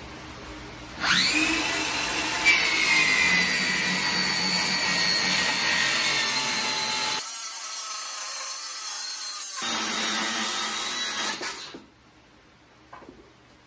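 Handheld circular saw spinning up with a rising whine about a second in, then cutting a long straight line through an 18 mm marine plywood sheet, its tone settling lower as the blade enters the wood. The saw winds down and stops a little before the end.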